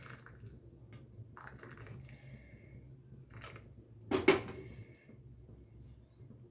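A few light clicks and clinks of kitchen utensils against a glass while a decoction is strained, the loudest knock about four seconds in. A low steady hum runs underneath.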